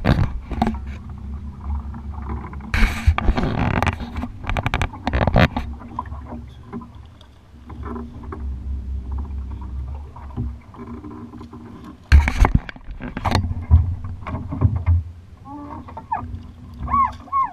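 Steady low wind rumble on the microphone of a bass boat, with handling and water noise, a patch of rapid scraping ticks a few seconds in, and two sharp knocks on the boat about twelve and thirteen seconds in.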